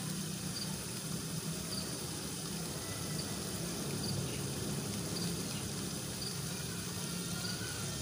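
A short, high chirp repeats about once a second, as from a cricket, over a steady low hum.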